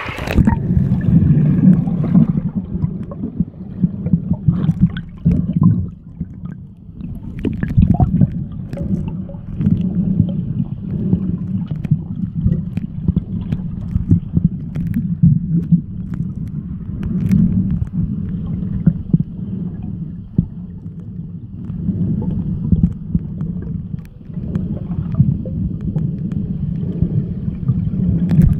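Muffled underwater rumble and gurgle of water moving around a submerged camera, a low steady noise that swells and fades irregularly, with scattered small clicks and knocks.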